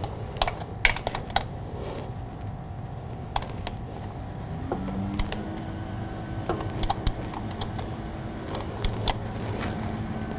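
Scattered light metallic clicks and taps of hand tools being worked on a motorcycle oil filter as it is tightened to torque, irregular rather than a steady ratchet rhythm.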